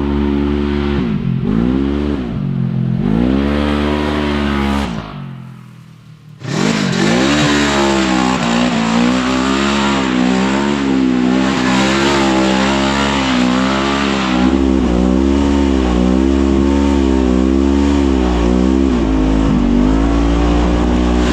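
Polaris RZR XP 1000's twin-cylinder engine running through an aftermarket GGB Trail muffler: revved three times in quick succession, briefly dropping away about five seconds in, then running on with the pitch rising and falling under changing throttle.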